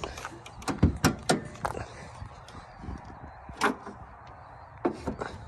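Hood of a 1997 Honda Odyssey being opened. Sharp metal clicks and clunks come in a quick cluster about a second in as the hood's safety catch under the grille is released and the hood lifts, with single clunks in the middle and a few clicks near the end.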